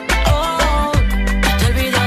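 Background music with a steady beat and a deep bass line: the instrumental part of a Latin urban song, with a sliding synth or vocal-like melody.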